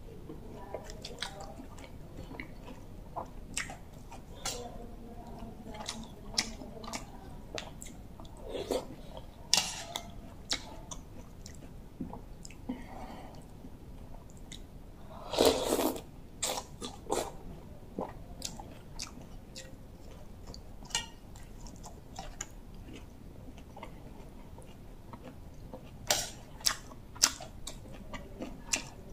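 Close-up chewing and wet mouth sounds of a person eating bamboo-shoot curry, with scattered short clicks and smacks. A louder burst comes a little past halfway, and a few sharp clicks come near the end.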